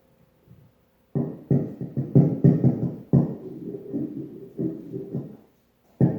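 Small plastic toy mouse banged and rubbed against a microphone: a rapid run of loud handling thumps and scraping starting about a second in, with a short break near the end.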